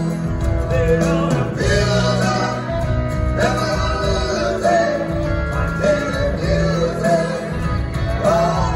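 Live rock band playing, recorded from the theatre audience: male vocals over electric bass, drums, acoustic guitars and organ, with the singing coming in about a second in.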